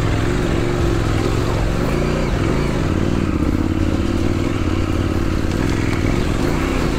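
Large adventure motorcycle engine running at low revs on rough off-road ground, its pitch dipping and rising a couple of times as the throttle is worked.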